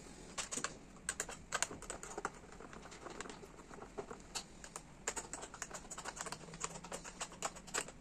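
A run of small, sharp metal clicks, several a second and irregular, from a 10 mm wrench loosening the bolts that hold a motorcycle's rear tail fairing.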